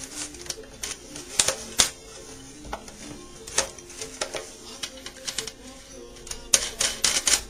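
Sharp metal clicks and taps of banjo hardware being handled while the tension hoop and hooks are fitted around the rim. They come singly at first and in a quick cluster near the end, over quiet background music.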